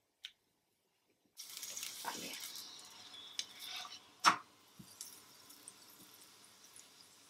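Oil sizzling in a frying pan under a flatbread pancake, starting suddenly about a second and a half in and slowly dying down. Midway a single sharp knock of a utensil against the pan stands out as the loudest sound.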